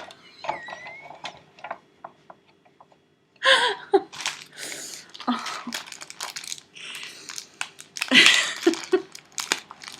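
Handling noises in a kitchen: scattered light clicks and knocks, with louder rustling bursts about three and a half seconds in and again near eight seconds.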